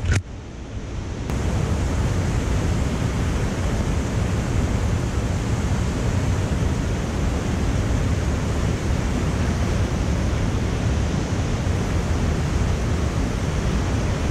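Steady rush of a whitewater creek close by, swelling over the first second or so and then holding even.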